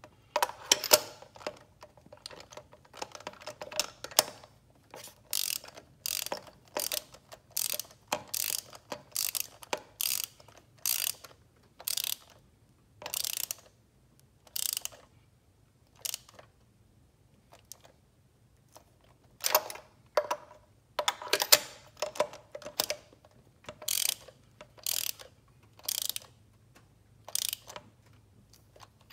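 Ratchet wrench clicking in short bursts, stroke after stroke, as new spark plugs are tightened down. The bursts come about one to two a second, with a pause of a few seconds around the middle.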